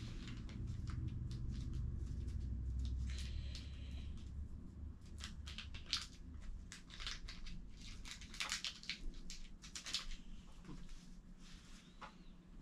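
Handling noise from a rifle scope and its small fittings being worked by hand: a low rumble for the first few seconds, then scattered sharp clicks and light rustles at irregular intervals.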